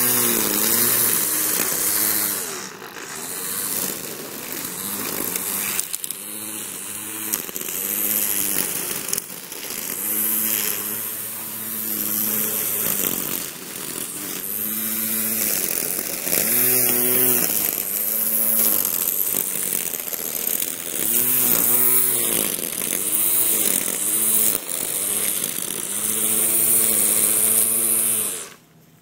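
Ryobi 24V cordless electric string trimmer running, its motor whine rising and falling over and over as the variable-speed trigger is squeezed and eased, with the spinning line hissing through grass. The sound cuts off abruptly near the end.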